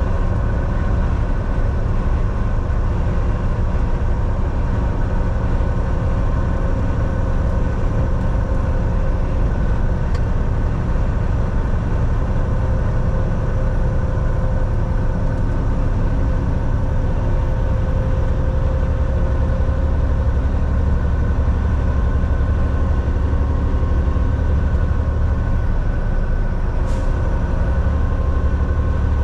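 Semi truck driving at a steady speed: a continuous low engine and road rumble with a constant drone over it. One faint click comes near the end.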